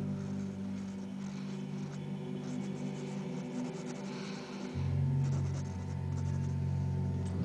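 Pencil scratching on paper in short shading strokes, over a low sustained music drone whose notes shift about two-thirds of the way through.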